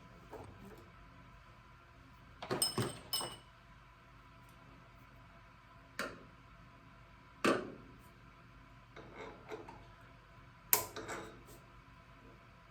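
Scattered metal clinks and sharp taps of hand tools on a tractor's steering cylinder while its seal and snap ring are seated. There is a short cluster of ringing clinks about two and a half seconds in, then single sharp taps at about six, seven and a half and eleven seconds.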